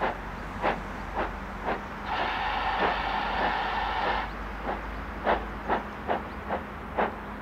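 Two-cylinder GWR Manor class 4-6-0 steam locomotive 7802 Bradley Manor chuffing, its exhaust beats about twice a second. A steam whistle blows for about two seconds near the middle, over the beats.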